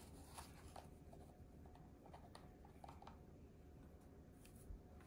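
Near silence: room tone with a few faint, light clicks.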